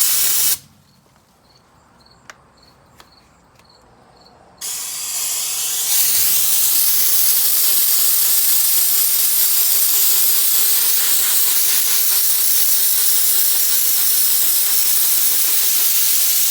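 Central Pneumatic gravity-feed sandblast gun blasting 70-grit aluminum oxide at 90 psi against the lacquered metal of a cabinet, stripping the finish. A short blast of loud hiss cuts off about half a second in. After a pause of about four seconds, the hiss builds again over about a second and runs on loud and steady.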